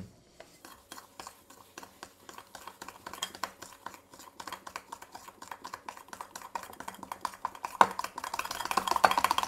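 A big spoon stirring a wet mix of melted butter, sugar and egg in a ceramic mixing bowl, making a fast run of clicks and scrapes against the bowl. The stirring gets quicker and louder near the end. This is the wet ingredients being mixed before the flour goes in.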